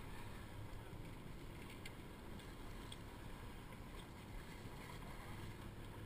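Steady low rumble and wash of a sportfishing boat and the water along its hull, with a few faint ticks about two to four seconds in.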